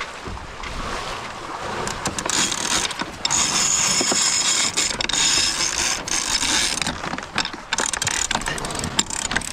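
Sailboat sheet winch being ground with a winch handle as the headsail sheet is trimmed in after a tack, its pawls ratcheting in rapid clicks. It starts about two seconds in and gets loud about a second later.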